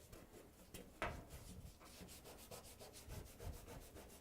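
Faint rubbing and handling of adhesive tape being pulled and pressed onto the dryer's top. There is one click about a second in, then a quick run of soft crackles.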